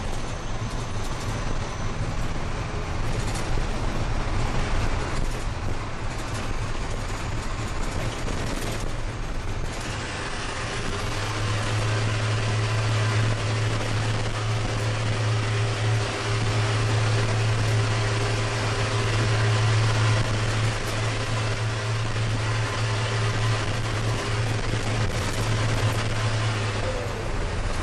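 Straight-piped International DT466 diesel of a Thomas school bus running with no muffler while driving, heard from the cab inside a road tunnel. Its loud, steady low drone grows stronger a little over a third of the way in and holds until shortly before the end.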